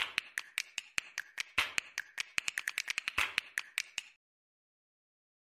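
A rapid, uneven run of sharp clicks, about five a second with a few louder ones, that stops about four seconds in, followed by silence.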